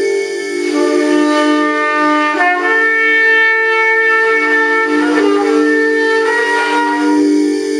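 Trumpet playing long held notes that step to a new pitch about four times, over a steady sustained low chord.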